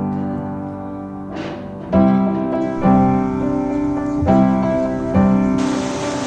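Piano playing slow, sustained chords, struck about once a second, in an instrumental break of a song. Near the end an even hiss like rain comes in under the chords.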